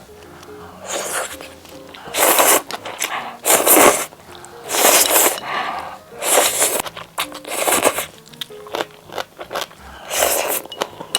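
Food-preparation sounds: a series of short scraping or rustling strokes, roughly one every second or so, over faint background music.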